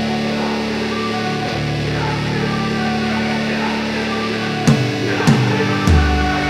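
Background rock music with electric guitar: held chords at first, then a heavier part with drums and bass coming in a little before the end.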